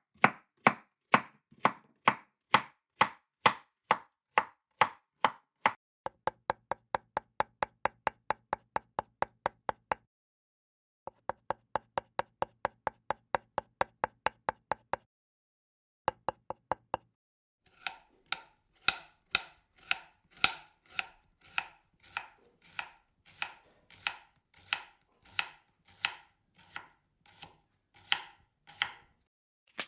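Kitchen knife chopping on a cutting board: runs of sharp, even strokes of about three to four a second, stopping briefly a few times. The last run is slower with a fuller, heavier stroke.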